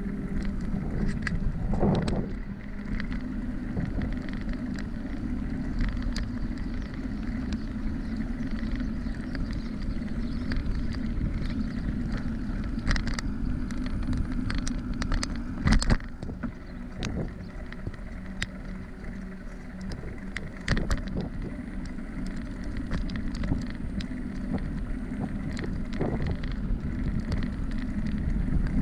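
Bicycle rolling along a paved trail: a steady rumble from the tyres on the path, with frequent small rattles and knocks as it goes over bumps, the loudest about sixteen seconds in.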